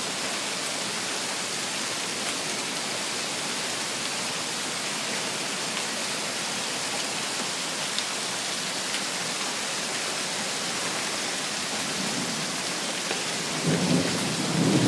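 Thunderstorm rain and hail falling steadily, with a few sharp ticks, and a low rumble of thunder in two swells near the end.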